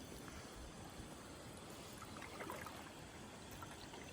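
Faint water trickling and lapping, with a few light ticks.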